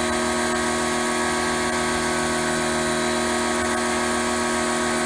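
Titan electric pressure washer running steadily, its motor and pump holding one unchanging hum.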